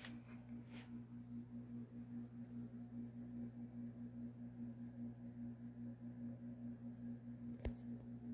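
A steady low electrical hum with a faint hiss behind it, and a single sharp click near the end.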